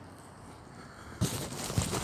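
Wind on the microphone, then about a second in a sudden loud rustling and buffeting as the long pleated skirt, blown by the wind, brushes against the phone.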